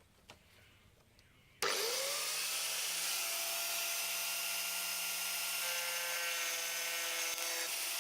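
Near silence, then about a second and a half in an angle grinder is switched on: its motor whine rises quickly to speed and then runs steadily.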